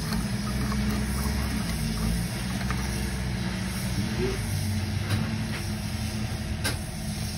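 A steady low mechanical drone with a few faint clicks and taps.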